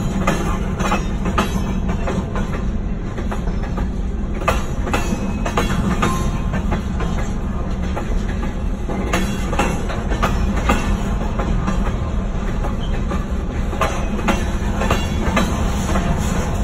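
Covered hopper freight cars being shoved across a road crossing, their wheels giving a steady low rumble with irregular clacks and clicks over the rail joints.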